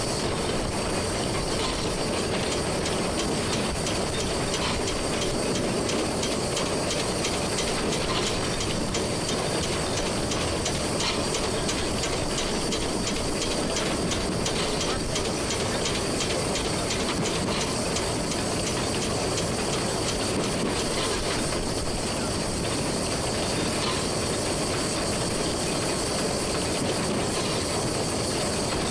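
Running sound in the cab of a 1925 Belgian-built steam locomotive under way: a steady hiss of steam, with the wheels clicking evenly over the rail joints.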